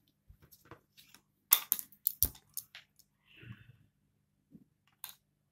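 Cardboard puzzle cards clicking and tapping against a glass tabletop as they are handled and set down: a run of light, irregular clicks, loudest about two seconds in.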